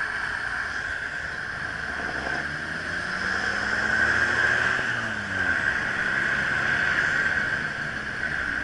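City traffic heard from a bicycle riding among cars: nearby car engines rising and falling in pitch, loudest about four seconds in, over a steady high whine.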